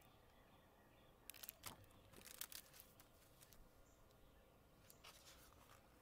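Near silence broken by a few short rustles and soft taps of a picture book's paper pages being handled, a cluster a second or two in and a few more near the end.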